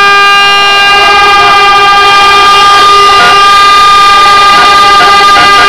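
A boat horn sounding one long, loud, steady blast, part of the harbour's salute to an arriving race yacht.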